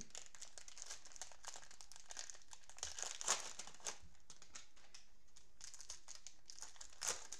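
Plastic wrappers of Panini Prizm football cello packs crinkling and crackling as the packs are torn open by gloved hands and the wrappers crumpled. The crackles are loudest about three seconds in and again briefly near the end.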